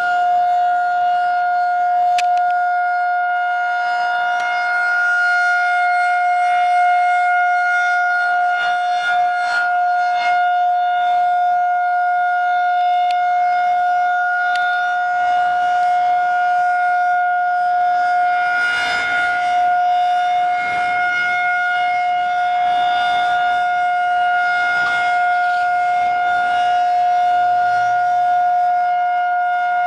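Emergency siren sounding one loud, steady tone with strong overtones, holding its pitch without rising or falling.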